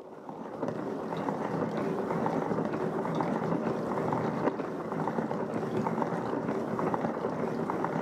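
Hand-cranked Rovin Ecospin portable spin dryer spinning wet laundry at speed: a steady whirring rush from the drum with light clicks, as the water is flung out of the clothes. It swells up in the first second, then holds steady.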